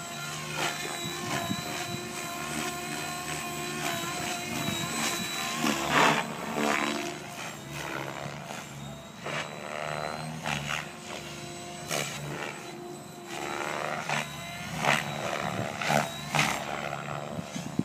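Mikado Logo 600 electric RC helicopter flying aerobatics: a steady rotor and motor whine that rises and falls in pitch, broken by several sudden louder whooshes.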